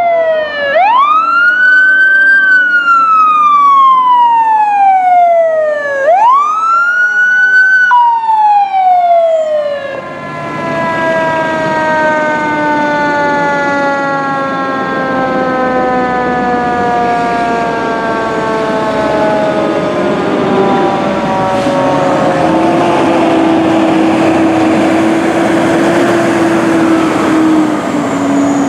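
Fire engine siren wailing, rising quickly and falling slowly twice, then winding down in one long falling tone over about ten seconds. Under and after it, the fire trucks' engines and road noise run steadily.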